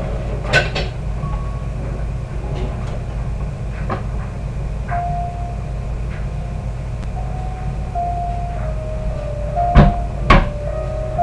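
Kitchen clatter: a few sharp knocks of dishes or utensils on a counter, the loudest two close together near the end, over a steady low rumble.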